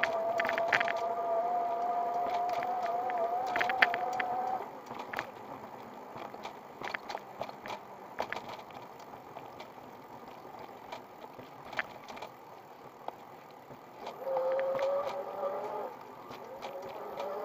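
Electric bicycle's 250 W hub motor whining under power, its pitch creeping up a little before it cuts out about four seconds in. The bike then coasts with scattered clicks and rattles over the rough, cracked path. The whine comes back at a lower pitch near the end.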